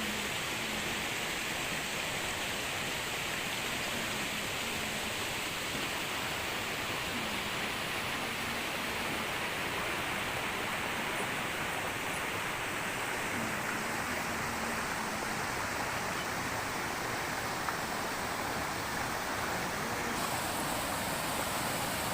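Steady rushing of flowing water, an even hiss that holds without a break.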